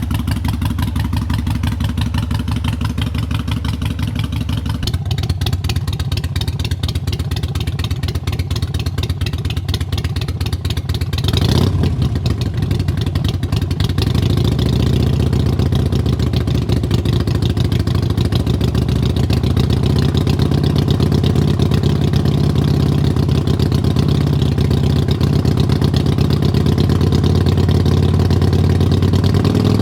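Harley-Davidson Iron 883's air-cooled Evolution V-twin running through Vance & Hines Short Shots Staggered pipes on a freshly flashed FP3 tune, with an even exhaust pulse at idle. About eleven seconds in it gets louder and stays so.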